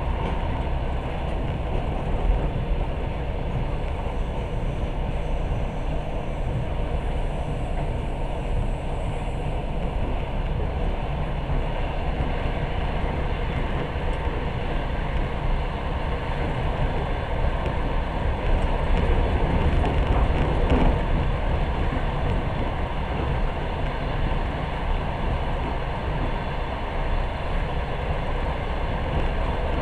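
Passenger train running along the rails, heard from inside a carriage: a steady low rumble of wheels and running gear that grows a little louder for a few seconds about two-thirds of the way through.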